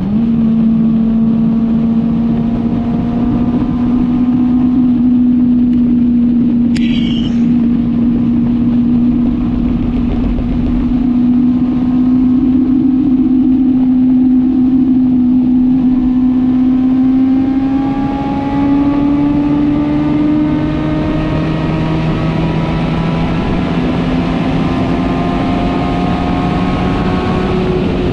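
Four-cylinder sport motorcycle engine running steadily at high revs under way, its pitch climbing gently after about sixteen seconds, with wind rush.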